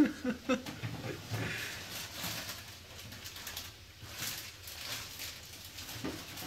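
Kitten smacking, licking and chewing at its mouth with small wet clicks and rasps, trying to free something caught in its teeth. There is a brief vocal sound right at the start.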